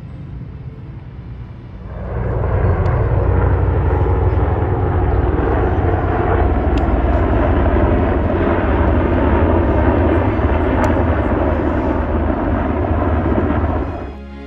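Aircraft engine noise: a loud, steady rush with a heavy low rumble. It comes in suddenly about two seconds in and cuts off shortly before the end.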